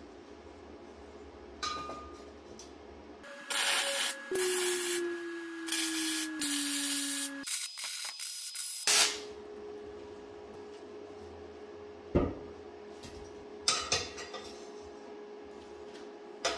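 MIG welder tack-welding 11-gauge square steel tubing: three bursts of crackling hiss over about four seconds, a few seconds in. Later come a few sharp knocks.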